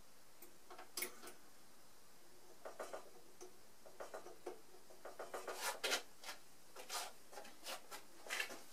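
Faint, scattered clicks and taps of small parts being handled as a Shoebox high-pressure air compressor's shutoff mechanism is put back together, growing busier in the second half.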